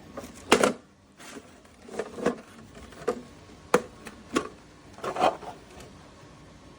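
A series of irregular knocks and clicks, about seven in all, roughly a second apart, the loudest about half a second in.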